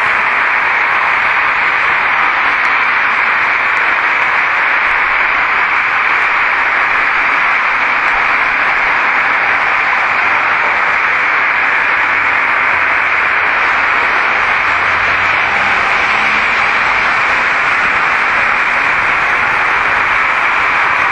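Loud, steady hiss of noise, strongest in the upper-middle range, with no breaks or changes and no words to be made out.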